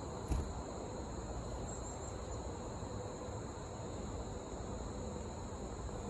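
Insects trilling steadily at a high pitch over a low rumble, with one brief thump about a third of a second in.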